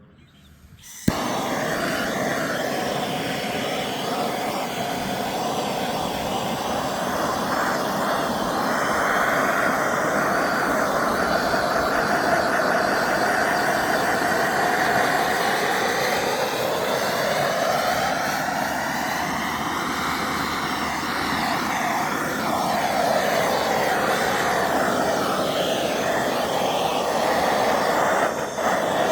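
Chainsaw running continuously while carving wood. It comes in abruptly about a second in, and its pitch rises and falls as the throttle and the cut change.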